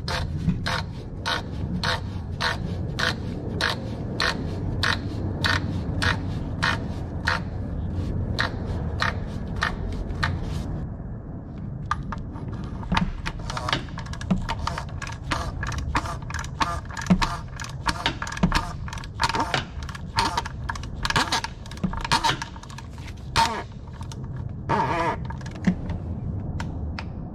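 Ratchet wrench clicking as the oil filter housing cap is tightened with a cap socket on an extension. Steady clicks at about two to three a second, then faster, uneven clicking from about halfway on.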